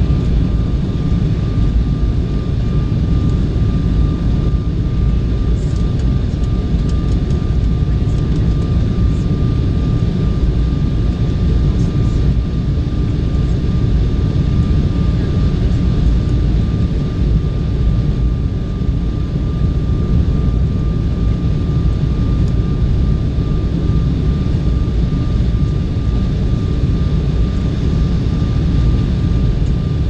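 Cabin noise inside an Embraer 190 airliner on approach: a steady, loud rumble of its GE CF34 turbofan engines and the air rushing past the fuselage, with a thin, steady high tone running through it.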